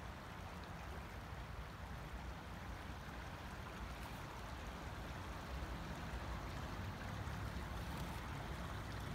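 Steady outdoor ambience of a swollen river in flood: an even rushing hiss of moving water over a low, uneven rumble.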